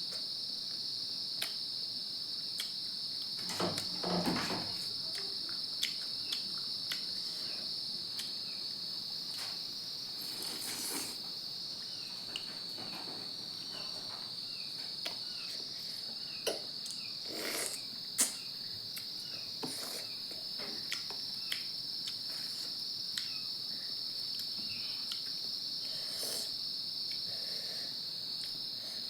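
Crickets chirring in a steady, continuous high-pitched chorus, with scattered short clicks and a brief rustle about four seconds in.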